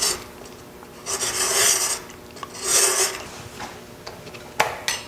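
Outside thread chaser rasping against the wooden thread of a box tenon as it turns slowly on a wood lathe, in two strokes about a second in and near three seconds, over the lathe's faint steady hum; the thread is being taken down a little toward a fit with its lid. A sharp click near the end.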